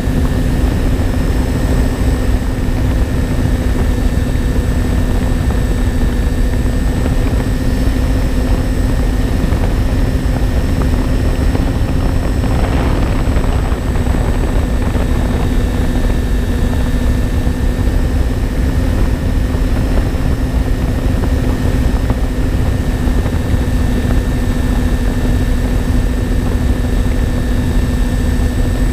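Twin electric motors and propellers of a MyTwinDream FPV plane running at a steady cruise: an even drone with a thin high whine over it, heard from on board with heavy wind rush on the microphone.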